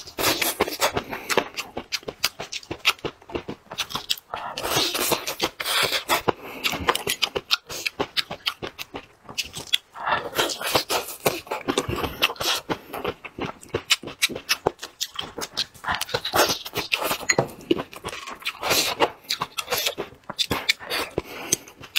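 A person chewing braised meat and green chili peppers: wet smacking and quick clicking mouth sounds, in several louder spells.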